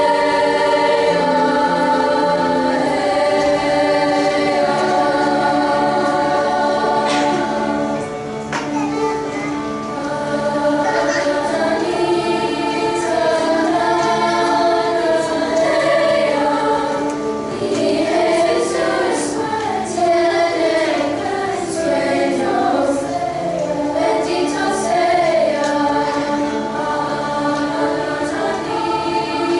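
Middle-school treble choir of girls' voices singing in harmony, with grand piano accompaniment.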